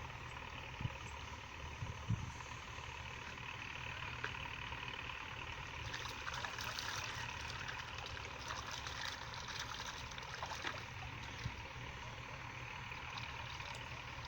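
Small engine running steadily with a low hum, with a few faint clicks over it.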